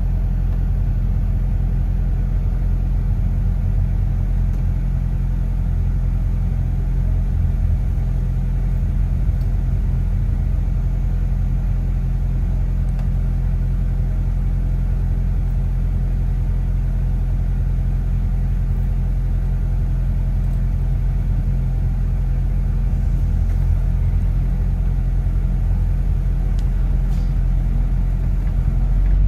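Steady low hum and rumble of a double-decker bus's engine and running gear, heard from inside on the upper deck.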